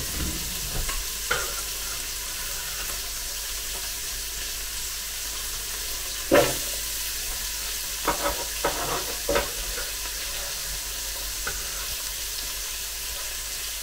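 Chopped dry-cure bacon sizzling in hot oil in a Ninja Speedi's cooking pot, a steady hiss. About six seconds in, chopped onion is tipped in off a chopping board with a sharp clatter, followed by a few lighter knocks.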